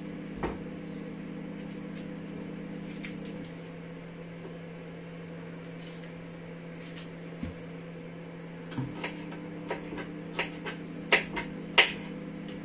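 Knife knocking on a wooden chopping board while cutting green pepper, a handful of irregular knocks in the second half, over a steady low hum.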